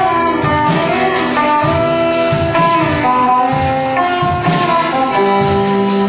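Live rock band playing: electric guitars holding and gliding between sustained notes over a steady drum beat.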